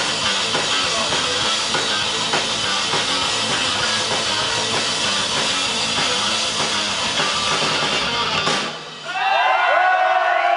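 Live heavy metal band, electric guitars and drum kit, playing the last bars of a song and stopping together about eight and a half seconds in. The crowd then cheers and whoops.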